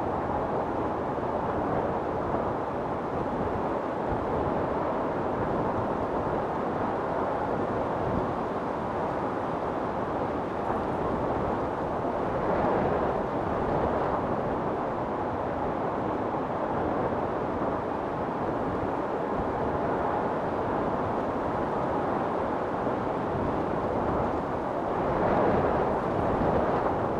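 Storm wind blowing hard and steadily, swelling in gusts about halfway through and again near the end.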